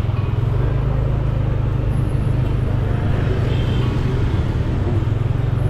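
Road traffic with a steady low engine rumble.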